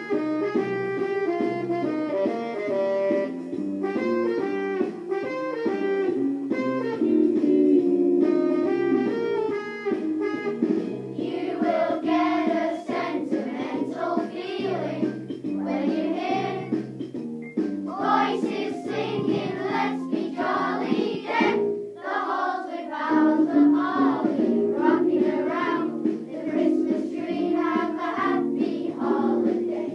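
Children's choir singing a Christmas carol over a plucked-string accompaniment. The accompaniment plays alone for about the first ten seconds, then the children come in singing.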